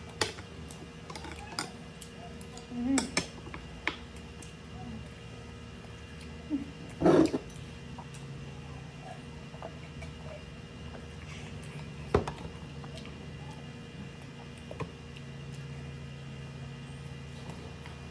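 Close-up eating sounds: chewing and swallowing, with chopsticks clicking against ceramic bowls and a scatter of sharp knocks, the loudest about seven seconds in and another about twelve seconds in. A drink is taken from a glass mug partway through.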